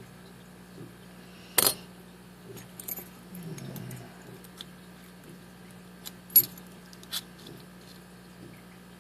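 Small metal lock parts clicking and clinking as a padlock core and its pins are handled: a sharp click about one and a half seconds in, two more near six and seven seconds, with faint ticks between.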